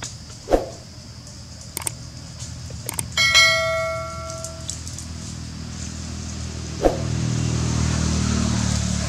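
Notification-bell chime sound effect: a couple of clicks, then one bell ding about three seconds in that rings out and fades over a second or so. Two dull thumps come before and after it, and a low rumble rises near the end.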